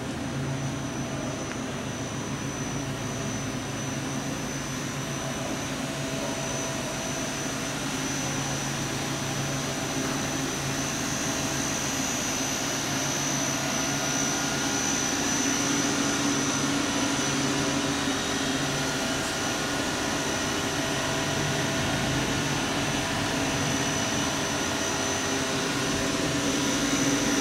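Steady machine hum and hiss with a thin high whine, held throughout and growing slightly louder: a powered-up CNC lathe idling, its hydraulic unit and cabinet cooling fans running.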